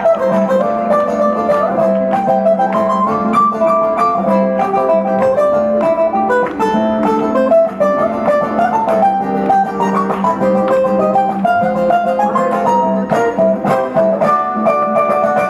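Two ukuleles playing an instrumental duet: a quick picked melody of short notes over a steady chord accompaniment.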